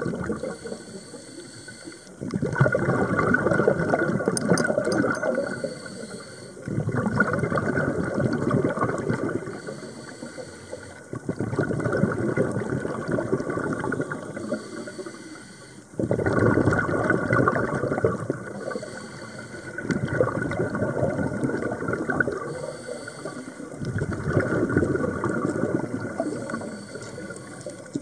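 Scuba diver breathing through a regulator underwater: each exhalation leaves the regulator exhaust as a rush of bubbling air lasting a few seconds, about six breaths in steady rhythm with quieter inhalations between.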